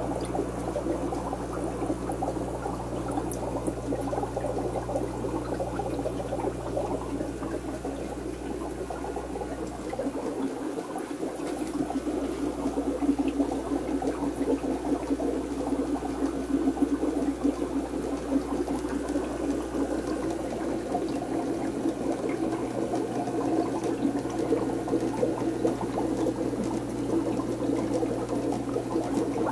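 Aquarium water bubbling and splashing steadily at the surface, over a steady low hum from the tank's pump.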